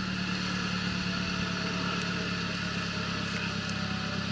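Suzuki Sidekick off-road truck's engine running steadily at low revs as the truck crawls slowly forward on a muddy slope.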